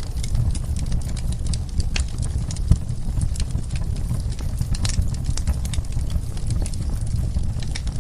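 Wood fire burning in a fireplace: a steady low rumble of the flames with irregular sharp crackles and pops, one louder pop about three seconds in.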